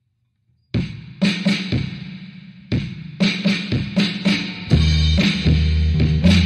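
Background music: a drum beat comes in just under a second in, and a steady bass line joins about two-thirds of the way through.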